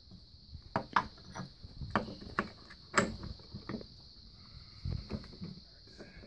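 Irregular metal clicks and knocks, about a dozen, the loudest about three seconds in: the gear, chain and drive shaft of a 1998 Polaris Scrambler transmission being fitted by hand into the case together.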